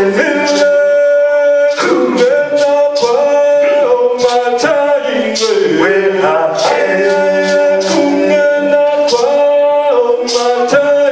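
Unaccompanied singing: long held notes moving between a few pitches, with the words audible in the consonants.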